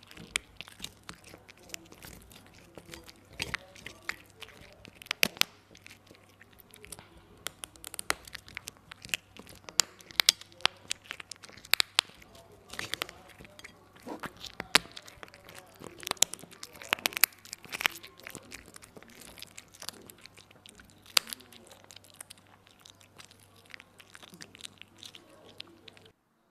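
Tabby cat eating chunks of raw meat right at the microphone: wet chewing with irregular sharp crunches and clicks as it bites and tears, a few much louder than the rest. The eating stops suddenly near the end.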